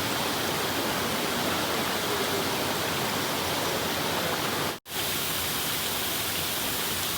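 Mallyan Spout waterfall rushing steadily, a constant even roar of falling water; the sound breaks off for an instant nearly five seconds in.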